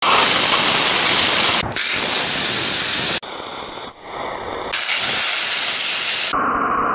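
Small rocket engines firing: a loud, steady hissing rush of exhaust. It comes in several short clips that cut abruptly from one to the next, one of them, about three seconds in, noticeably quieter.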